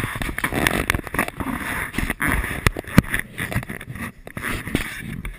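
Handling noise from a carried handheld camera: rubbing and rustling on the microphone with many irregular knocks and clicks.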